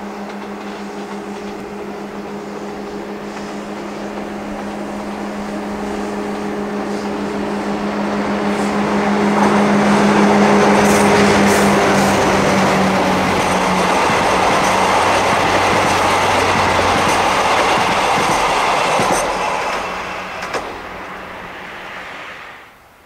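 Diesel-hauled passenger train running past: a DD51 diesel locomotive's steady engine hum under a rising rumble and rail clatter from its coaches. The noise is loudest about ten seconds in, the engine hum fades away soon after, and the coaches' running noise eases off and then cuts off just before the end.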